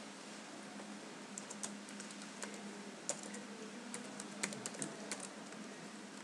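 Computer keyboard typing: a run of irregular keystrokes starting about a second in and stopping about five seconds in, over a steady faint low hum.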